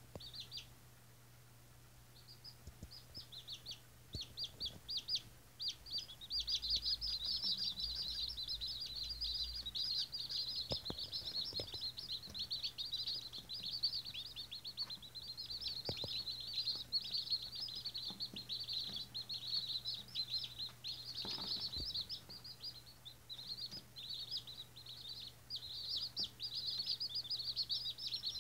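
Day-old White Australorp chicks peeping: a fast, overlapping stream of short, high, falling peeps from several chicks at once. After a brief lull at the start, they become continuous from about three seconds in.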